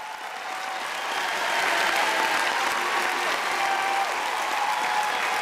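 Large concert crowd cheering and applauding, with scattered shouts, swelling up over the first two seconds.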